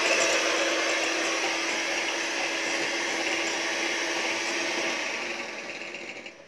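Electric hand mixer running steadily with its beaters in cream cheese in a glass bowl, a constant whirring hum, fading out and stopping near the end.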